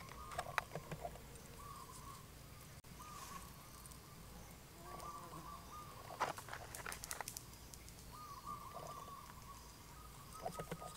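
Faint clicks and rustles of small fish being pressed into a split bamboo skewer, loudest about six to seven seconds in. A bird calls repeatedly in the background.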